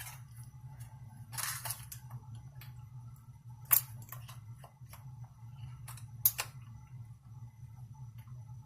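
A few short clicks and handling noises from an AR-15 and its ejected cartridge being handled, over a steady low hum; the two sharpest clicks come about two and a half seconds apart, in the middle of the stretch.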